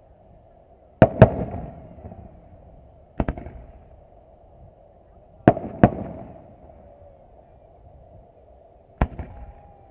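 Aerial firework shells going off. There are six sharp bangs: two close together about a second in, one a couple of seconds later, another close pair near the middle, and one near the end. Each trails off over about a second.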